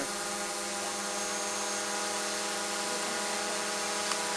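Steady buzzing hum of small motors, holding one even pitch with many overtones, with a faint sharp click about four seconds in.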